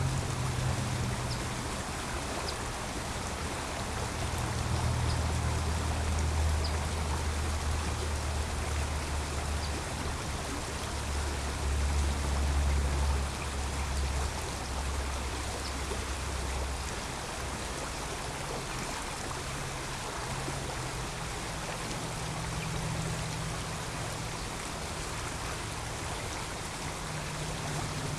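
Creek water running steadily, with a low rumble of road traffic beneath it that swells for several seconds in the first half and again near the end.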